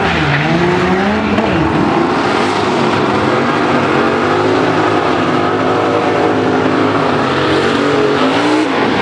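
Turbocharged 2.3-litre four-cylinder Mustang making a full-throttle drag-strip pass. The revs climb, drop at a gear shift about a second and a half in, then climb again and hold high as the car runs down the track, falling away just before the end.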